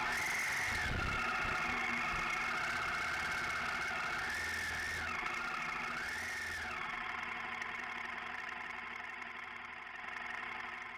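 Honda Varadero 1000's V-twin engine running at low speed on a slow climb, with three brief rises and falls in revs in the first seven seconds, then easing off gently toward the end.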